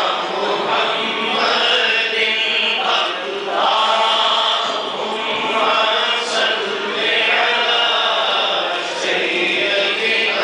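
Unaccompanied male voice chanting an Urdu naat, a devotional poem in praise of the Prophet, into a microphone. It comes in long melodic phrases with short breaks between lines.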